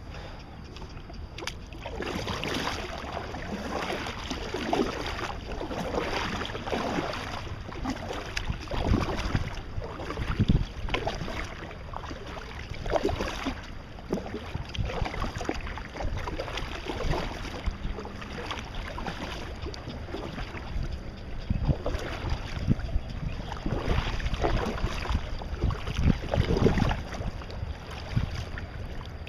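Kayak paddle strokes dipping and splashing in the water, a swish every second or two, with wind rumbling on the microphone.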